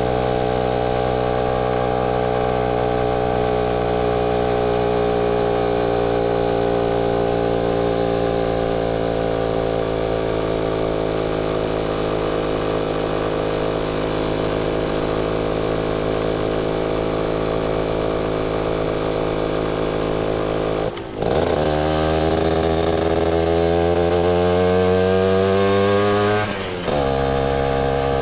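Motorcycle engine running under way, its revs sinking slowly for about twenty seconds. About 21 s in the sound dips briefly at a gear change, the revs then climb for about five seconds as the bike accelerates, and drop again at the next gear change near the end.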